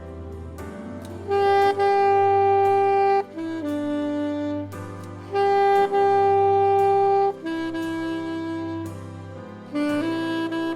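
Saxophone playing a slow instrumental melody of long held notes over a soft, sustained low backing accompaniment.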